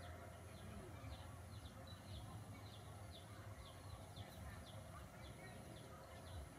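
Faint outdoor ambience: a short high chirp repeating about twice a second, over a low rumble and a faint steady high tone.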